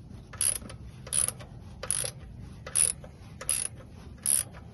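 Socket ratchet worked back and forth to loosen the oil drain plug, with a short rasping click run on each back-swing, about six strokes evenly spaced under a second apart.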